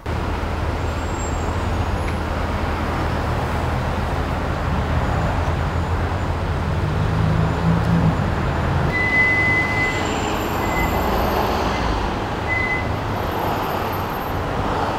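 Street traffic noise: a steady low rumble of passing vehicles, with a thin high whine that comes and goes in the second half.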